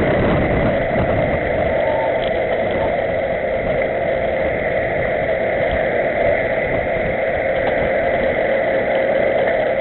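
Steady rush of wind on the microphone and tyre rolling noise from a camera mounted on a bicycle riding along asphalt in a group of cyclists.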